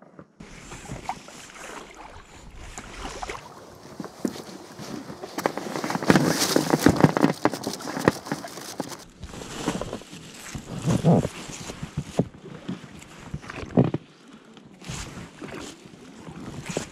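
An inflatable rowing boat being rowed: oars splashing and knocking in the water, with wind on the microphone. The sound comes in a few stretches that break off suddenly.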